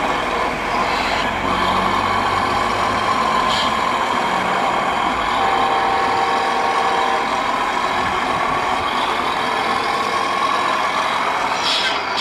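Truck engine running steadily, with a thin whine that drifts slightly in pitch.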